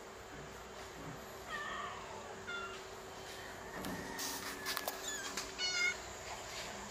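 Young kittens mewing: several short, high-pitched mews, with the loudest pair near the end. A few soft clicks come in between.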